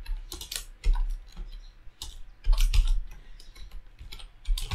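Computer keyboard typing: irregular keystroke clicks with low thuds, a quick run of keys about two and a half seconds in.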